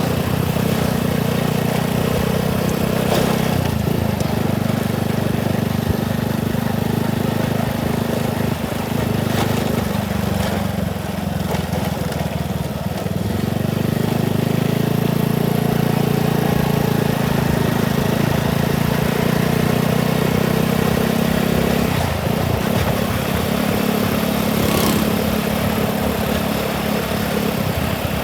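Motorcycle engine running as the bike rides along, with wind and road noise. The engine note dips a few times, then picks up again.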